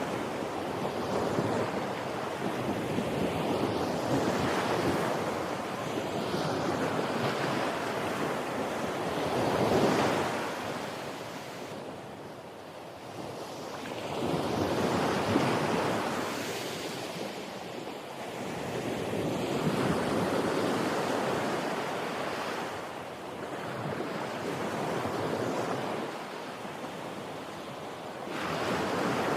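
Ocean surf: waves washing in, the sound swelling and fading every few seconds.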